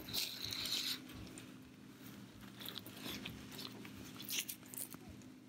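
Synthetic wig hair of a glove puppet rustling and scratching close against the microphone as the wig and puppet are handled. There is a crinkly burst in the first second, then scattered lighter rustles.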